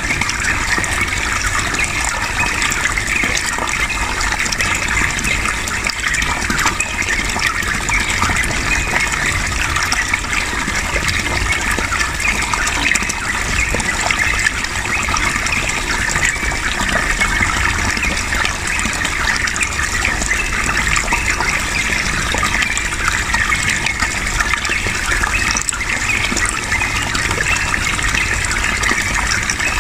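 Steady rush of flowing water, with the chattering song of a yellow-vented bulbul (trucukan) mixed into it.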